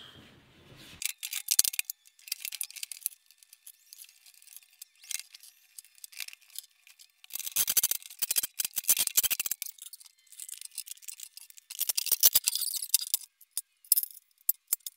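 Cordless DeWalt driver running screws into a steel cart frame in several short bursts, the longest lasting about two seconds around halfway through, with clicks and knocks of parts being handled in between.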